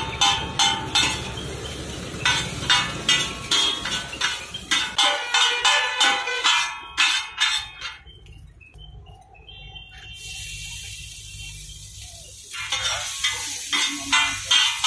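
Two metal spatulas clanking against a large flat griddle as chow mein noodles are tossed and chopped, in a steady rhythm of about three strikes a second. The clanking stops for about five seconds past the middle, then starts again.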